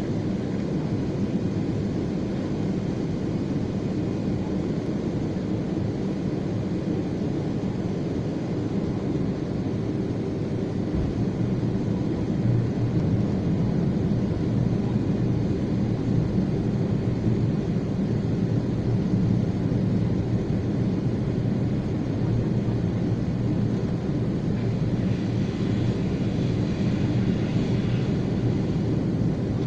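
Steady airliner cabin noise on the descent to landing: engine and airflow rumble heard from inside the cabin, getting a little louder about eleven seconds in.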